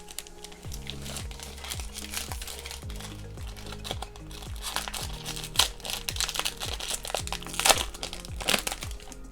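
Plastic wrapper of a trading card pack crinkling as it is handled and opened, in irregular crackles, with the loudest crinkles about halfway through and near the end, over soft background music.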